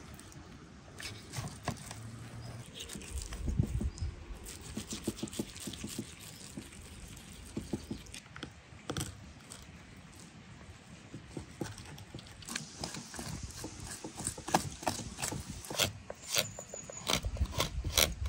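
Irregular sharp clicks and knocks of hands at work preparing food, coming thicker near the end, with a few low thumps.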